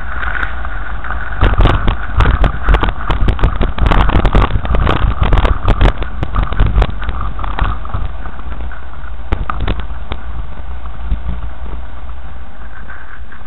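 Car driving over a rough, stony dirt track, heard from inside: a steady low road and engine rumble, with a rapid run of knocks and rattles as the car jolts over the rocks from about a second and a half in to about eight seconds, then only a few knocks.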